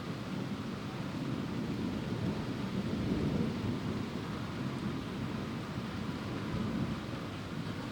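Distant thunder rolling in a long low rumble from a supercell thunderstorm, swelling about three seconds in, over a steady hiss.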